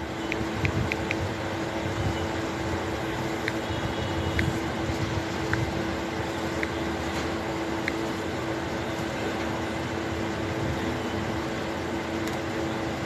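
Steady mechanical hum with one constant low tone, with a few faint scattered clicks.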